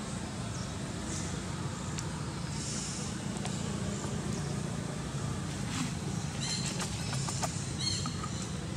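Outdoor forest ambience: a steady low rumble with a few short high bird chirps, clustered in the second half.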